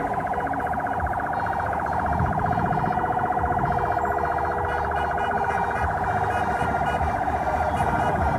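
Emergency vehicle siren sounding steadily with a fast, even warble.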